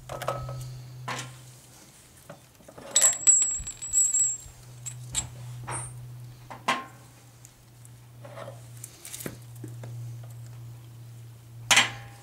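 Metal clinks and knocks as a go-kart wheel is worked off its axle: small metal parts jingle with a brief high ring about three seconds in, scattered taps follow, and a sharper knock comes near the end as the wheel comes free. A steady low hum runs underneath.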